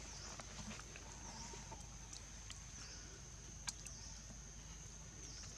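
Quiet outdoor ambience: a steady high-pitched buzz with a few brief dips, and scattered soft clicks and rustles, the sharpest click a little past halfway.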